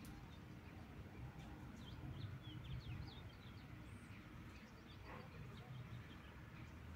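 Faint bird chirps: a quick run of short, high notes that starts about a second and a half in and stops after two seconds or so, heard over a low, steady outdoor rumble. A single faint call follows about five seconds in.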